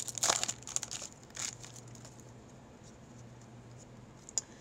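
Wrapper of a trading-card pack crinkling and tearing as it is opened, a few rustles in the first second and a half, then a faint steady hum with one small click near the end.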